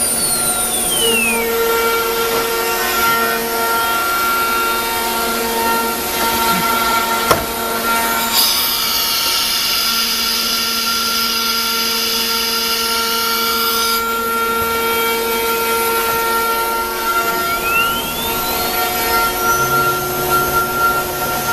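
CNC router with an automatic tool changer running: several steady machine tones, the spindle's whine falling away at the start and rising again near the end. A higher, brighter whine holds for about five seconds in the middle, and there is one sharp click about seven seconds in.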